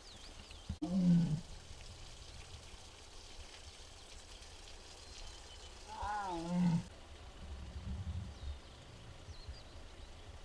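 A tiger calls twice: a short, loud call about a second in and a longer one with a wavering pitch about six seconds in.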